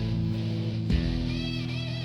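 Background music led by guitar, with sustained chords and a steady beat.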